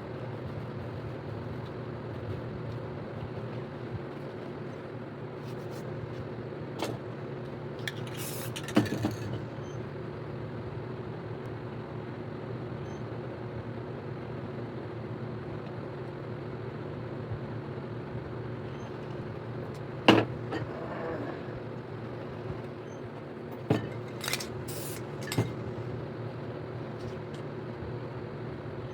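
Steady mechanical hum with one held tone. A few short hisses of spray paint come about a third of the way in and again near the end, with sharp clicks of cans or tools being handled.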